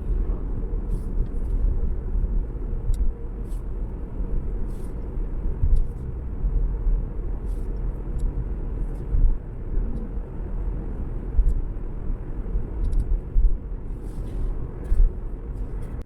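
Steady low rumbling noise with a few faint high clicks, cutting off suddenly at the end.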